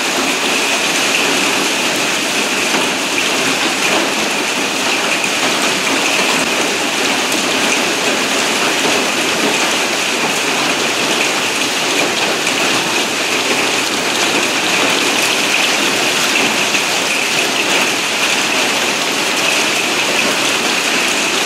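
Heavy hail, many stones the size of table-tennis balls, falling densely with rain onto a petrol station's sheet-metal canopy roof and the paving: a loud, steady, unbroken din of countless strikes.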